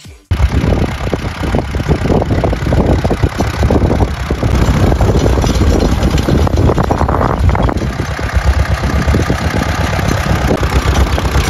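Ursus C-330 tractor's two-cylinder diesel engine running steadily while pulling a precision seeder, a dense low chugging that starts abruptly just after the beginning.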